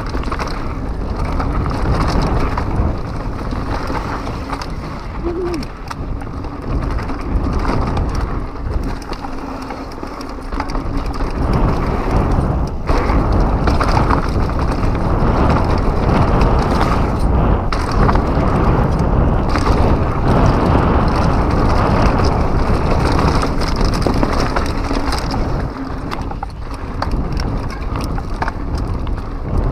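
2015 Pivot Mach 6 full-suspension mountain bike running fast down a rough dirt trail: tyres rolling over dirt, with the bike rattling and knocking over bumps and air rushing past the camera. It gets louder about halfway through.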